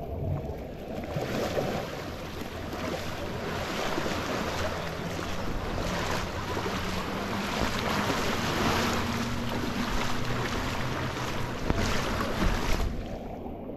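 Wind on the microphone over small waves lapping in shallow sea water at a sandy shore: a steady rush that rises about a second in and cuts off abruptly near the end.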